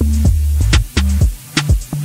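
Background electronic music: a steady beat of sharp drum hits over heavy bass notes.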